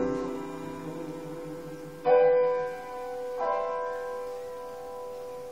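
Piano playing the closing chords of a song's accompaniment: a chord struck about two seconds in and another just over a second later, each left to ring and slowly fade.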